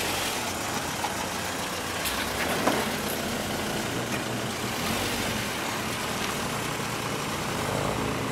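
1984 Volkswagen Jetta GLI two-door's four-cylinder engine running steadily at low revs as the car rolls slowly past.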